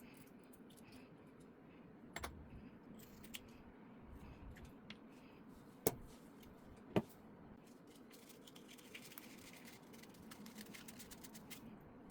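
Faint handling of small hard parts: light scraping and rattling, broken by scattered small clicks and two sharp clicks about six and seven seconds in.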